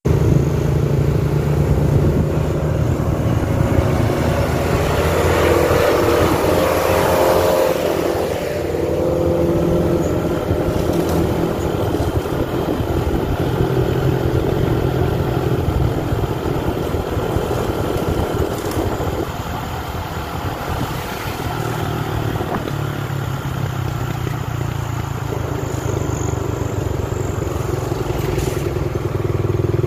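Vehicle engine and road noise heard from inside a moving cab: a steady low drone, with a louder swell about five to eight seconds in.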